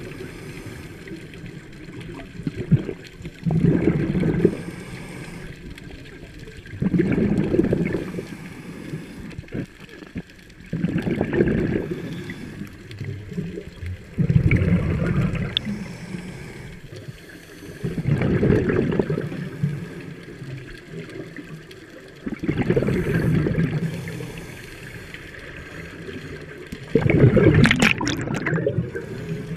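Scuba diver breathing through a regulator underwater: a gurgling rush of exhaled bubbles about every four seconds, with quieter stretches between breaths.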